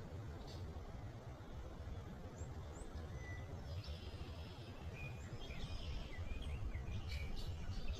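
Outdoor ambience: small birds chirping and twittering now and then over a steady low rumbling background noise, with the calls coming more often in the second half.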